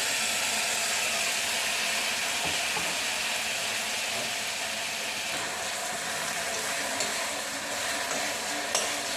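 Onion and tomato frying in hot oil in a pan, a steady sizzle that eases slightly toward the end.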